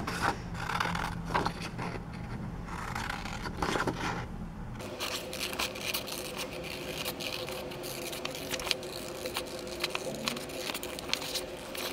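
Scissors cutting through stiff red card stock: a run of repeated snips with the scrape and rustle of the card as it is worked along the outline of a template.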